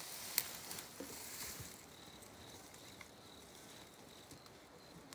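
Faint rustling and a light click as a hand handles a wooden beehive's cover in the grass, then a faint steady high insect tone.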